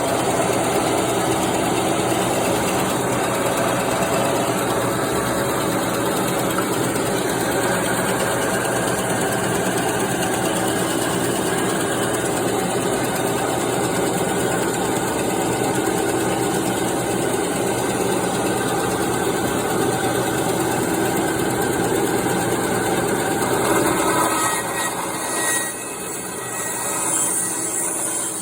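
Bandsaw running steadily. Near the end the sound drops in level and changes.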